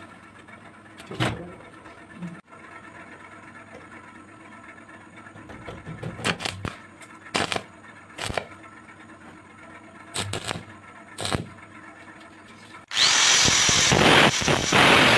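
Stick arc welder laying short tack welds on a steel-rod frame, heard as about six brief bursts. About thirteen seconds in, an angle grinder with a thin cut-off disc starts suddenly and cuts a steel rod clamped in a vise, much louder than the welding.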